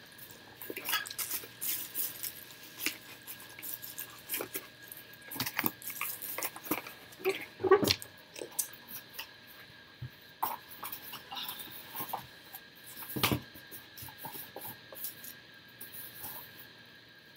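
Items being packed and handled in a cardboard shipping box: rustling and scraping with scattered small knocks and clinks, and two sharper knocks about eight and thirteen seconds in. A faint steady tone runs underneath.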